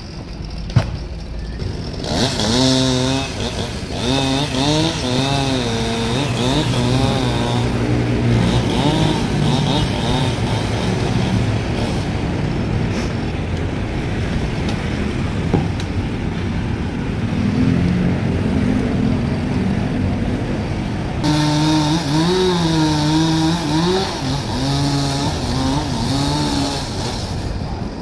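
Chainsaw running and cutting, its engine pitch wavering up and down over and over as it works, with a sudden change in the sound about three quarters of the way through.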